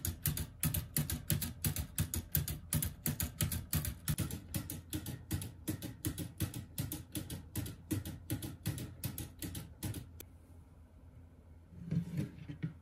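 LEGO Technic clock escapement ticking: plastic pallet lever and escape wheel clicking at about four ticks a second, stopping about ten seconds in. A short rattle follows near the end.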